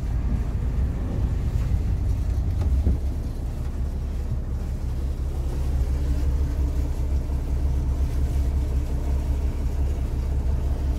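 Volvo Penta AD41 marine diesel engine running steadily at low revs, a deep even drone.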